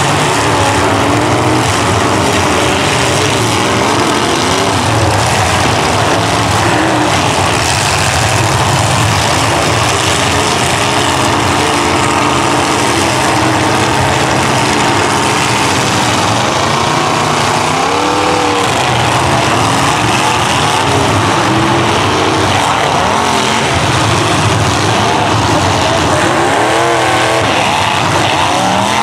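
Engines of several demolition derby cars running at once, loud and continuous, with pitches that keep rising and falling as drivers rev. The revving is strongest about two-thirds of the way in and again near the end.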